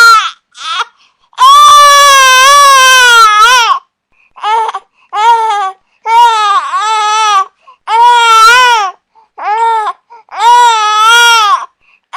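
A baby crying: loud high-pitched wails, one long cry of about two seconds followed by a run of shorter cries with brief pauses for breath between them.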